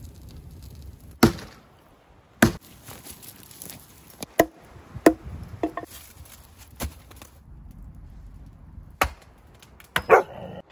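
Wood being chopped: about seven sharp, irregularly spaced chopping strikes, with a short dog bark near the end.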